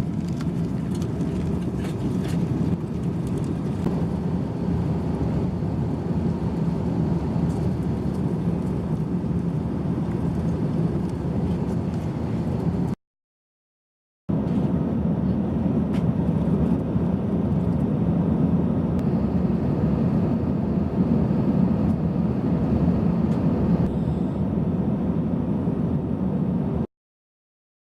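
Steady airliner cabin noise, the drone of engines and air in flight. It breaks off twice into brief silence.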